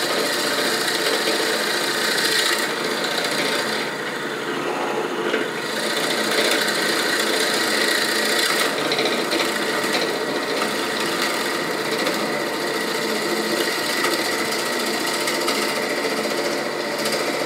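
SK11 SDP-300V benchtop drill press (300 W motor) running, its drill bit boring into a softwood board with a steady rasping cut. The cutting sound eases for a moment about three to five seconds in.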